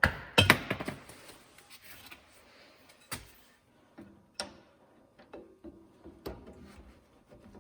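Two loud metallic clanks with a brief ring in the first half-second, then scattered light knocks and clicks of metal tools and stock being handled in a forge shop.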